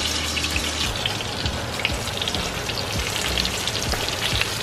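Flour-dredged chicken breasts frying in hot butter and olive oil in a pan: a steady sizzle with many small crackles and pops.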